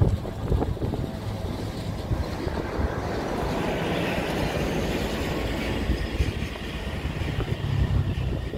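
Single-engine agricultural crop-duster aircraft at takeoff power, its engine and propeller a steady, heavy rumble as it accelerates away down the runway.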